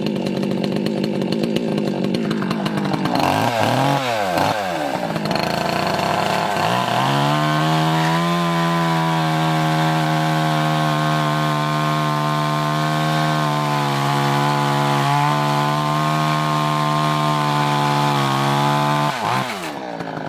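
Two-stroke chainsaw running at high revs. Its pitch sweeps up and down a few seconds in, then holds a steady lower note for about twelve seconds while it cuts through a tough log of firewood, and drops away near the end.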